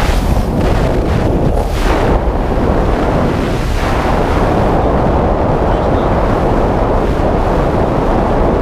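Wind noise on a GoPro's microphones held out of a car window at about 90 km/h, the mics covered by a foam ring cut from a paint roller: a loud, steady rush with most of its weight low down.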